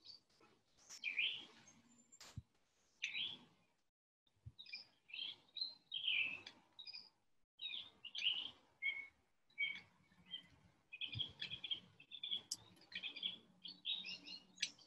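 Garden birds chirping in many short, quick calls, a few at first and then a busy run from about four seconds in. A single sharp click sounds about two seconds in.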